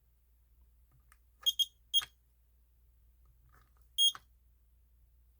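Ten-year-old combination smoke and carbon monoxide alarm giving short high-pitched chirps: three quick ones close together, then a slightly longer one about two seconds later, instead of its full alarm. The owner takes it for a broken unit that needs resetting.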